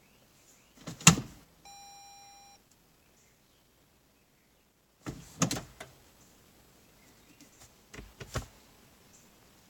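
A sharp click about a second in, followed by a single steady electronic beep lasting about a second from the 2014 Toyota Avalon Hybrid's cabin. Further clicks and knocks of handling the controls come around five and eight seconds in.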